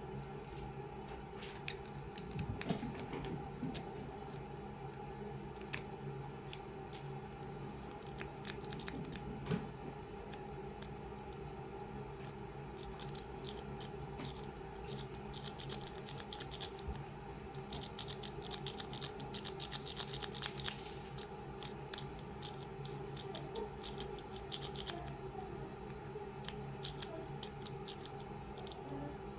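Lock-pick rake scrubbing in and out of a pin-tumbler padlock's keyway: quick scratchy metallic clicks as the pins are jostled, thickest in the middle stretch, over a steady low hum.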